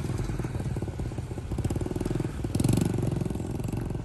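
Pocket bike's small single-cylinder engine running as it is ridden along, a rapid steady putter that grows a little louder about two and a half seconds in.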